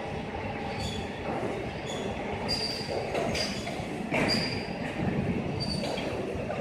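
Twin spindles of a CNC plate drilling machine drilling metal plate: a continuous grinding cutting noise with short, high-pitched squeals from the bits, recurring every half second to a second.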